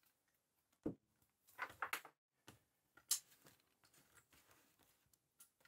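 Faint close-up handling sounds of steel tweezers and gloved fingers pressing wires and Kapton tape down on an opened camera top: a soft knock about a second in, a short crinkling rustle just before two seconds, and a sharp tick a little after three seconds.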